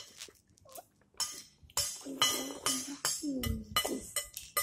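Metal spoons and forks clinking and scraping against plates while eating, in quick irregular clicks that thicken after about a second in.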